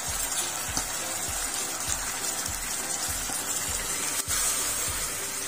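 Background music with a steady beat, about two beats a second, over the steady hiss of beef ribs adobo sizzling as its sauce reduces in the pot.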